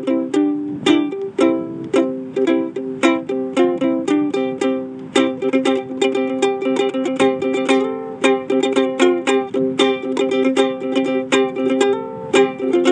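Acoustic plucked string instrument playing an instrumental passage of a song: a quick, steady run of picked notes and chords with no singing.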